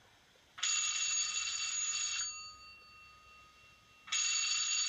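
Telephone bell ringing twice: one ring of about a second and a half, its tone fading after it stops, then a second ring starting about four seconds in.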